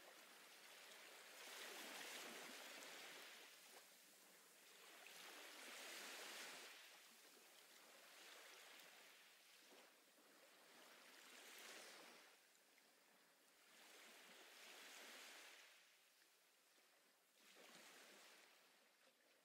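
Faint ocean surf: waves swelling and washing back in five slow surges, every three to four seconds.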